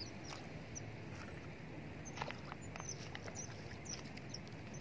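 Quiet outdoor ambience: a steady low background noise with faint, short high chirps and a few scattered light clicks.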